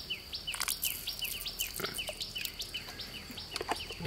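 A bird chirping in a quick run of short, falling notes, about three a second, over a steady high insect buzz, with a few faint splashes of hands in muddy water.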